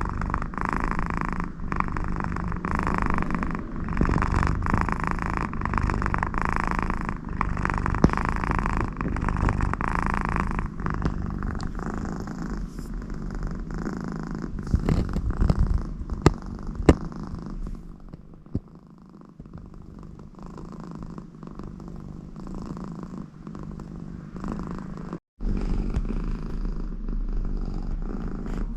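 American Shorthair cat purring loudly, with a snore-like nasal sound swelling on each breath about once a second. The purr grows softer about halfway through.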